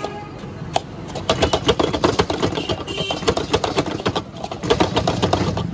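A metal ladle clattering and scraping against a large wok as noodles are stir-fried and tossed: a quick run of sharp knocks, several a second, with short lulls at the start and about four seconds in, over a steady low hum.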